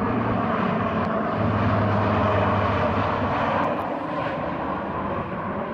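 Lockheed C-130J Hercules flying low overhead, its four turboprop engines and six-bladed propellers giving a steady drone with a low hum. It is loudest about two seconds in and eases off toward the end.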